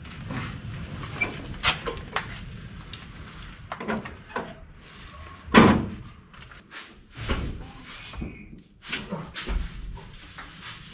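A run of irregular knocks and clunks, with one loud bang about five and a half seconds in.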